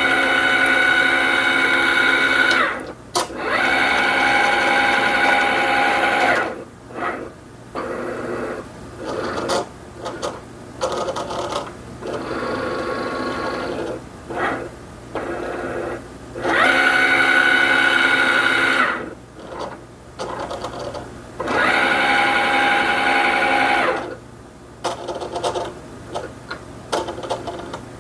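Cricut Explorer Air 2 cutting machine kiss-cutting a laminated sticker sheet: its motors whir as they drive the mat back and forth and move the blade carriage. Several steady whirs lasting a few seconds each alternate with shorter stop-start runs.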